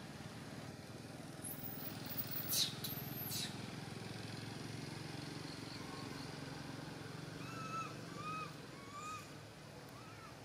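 Baby long-tailed macaque crying: a few sharp high-pitched squeals about two seconds in, then four or five short rising-and-falling whimpers near the end. A steady low engine hum runs underneath.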